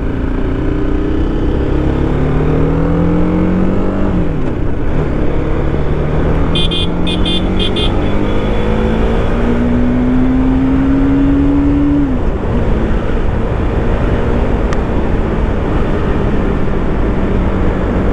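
Motorcycle engine pulling through the gears while riding, with wind rushing past. The engine note rises, drops at a gear change about four seconds in, climbs again for several seconds, then falls back at about twelve seconds and holds steady. A brief run of rapid high beeps sounds about seven seconds in.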